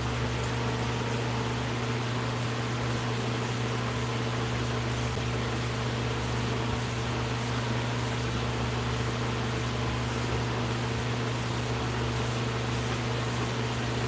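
Steady low mechanical hum, like a running ventilation fan, with a few faint steady tones above it.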